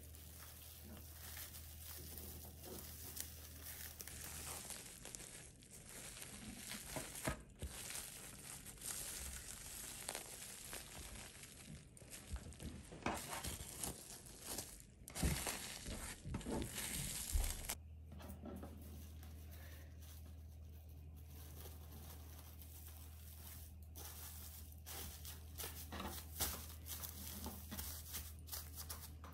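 Clear plastic film crinkling and rustling in irregular crackles as hands roll and press marinated chicken into a tight wrapped log.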